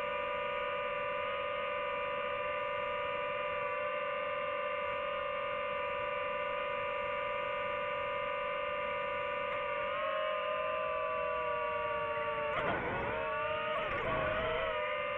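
DJI FPV drone's motors and propellers whining steadily in flight. Near the end the pitch dips and climbs back twice as the motor speed changes.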